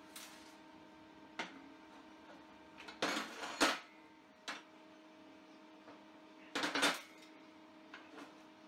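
Steel parts being handled on a steel workbench: a few short metallic knocks and clanks, with two longer clattering bursts about three and about seven seconds in, over a steady faint hum.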